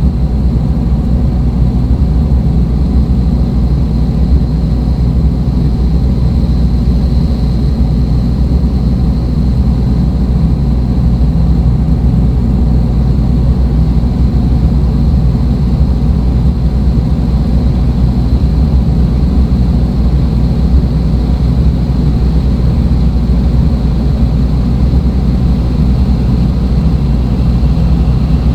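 Dark ambient electronic drone music: a loud, steady low rumble with a hiss above it and a faint high thin tone that swells about six seconds in.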